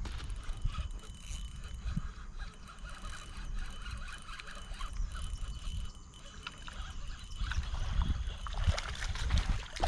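Fishing reel being cranked with a fine mechanical clicking as a crappie is reeled in to the bank, over a steady low rumble, with a few low thuds near the end.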